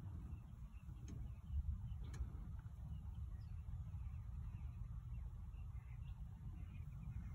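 Wind rumbling on the microphone outdoors, with faint birdsong and two faint clicks about a second apart, one and two seconds in.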